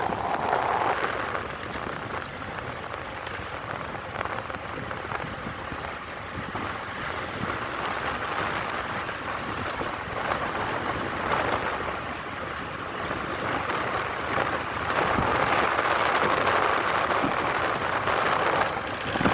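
Waterfall: a steady rush of falling water, getting somewhat louder in the last few seconds.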